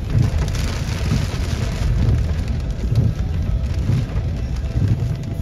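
Heavy thunderstorm rain pouring steadily, its hiss heaviest in the first two seconds, over a low rumble that swells and falls about once a second.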